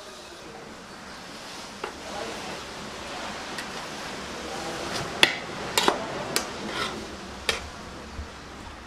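A metal ladle stirring freshly opened dum biriyani in a large aluminium pot, knocking and scraping against the pot in several sharp clinks from about five seconds in, over a steady hiss. This is the rice being turned to mix in the beef masala at the bottom once the dum is broken.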